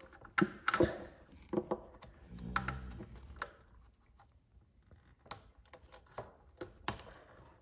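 Irregular light clicks and taps of hands working a hose clamp and the rubber air-intake duct on a scooter's crankcase cover.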